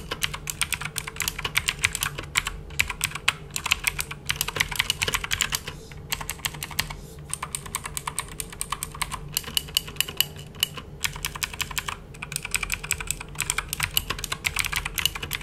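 Typing on a Keychron K2 mechanical keyboard with clicky blue switches: a fast, uneven stream of sharp key clicks with a few brief pauses.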